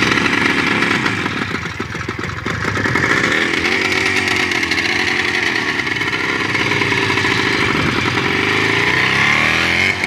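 Jawa 634's two-stroke twin-cylinder engine running just after a major overhaul. The revs dip about two seconds in, then come back up and hold, wavering a little under the throttle.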